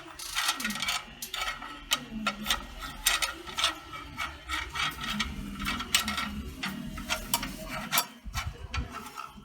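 Irregular metal clicks, knocks and rattles as the parts of an unplugged circular saw are handled and adjusted, such as the rip fence being fitted and its lock tightened; the motor is not running.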